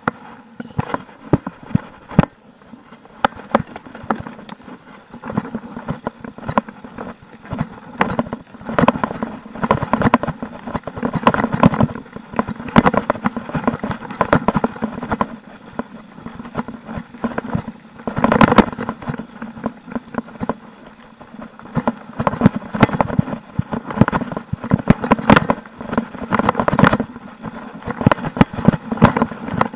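Mountain bike riding down a dirt and root trail: tyres crunching over the ground with frequent sharp knocks and rattles from the bike as it hits bumps, heaviest in a rough stretch around the middle.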